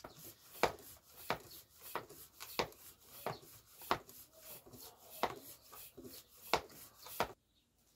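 Bicycle pump inflating a bike tyre: about eleven even pump strokes, roughly one every two-thirds of a second, stopping shortly before the end.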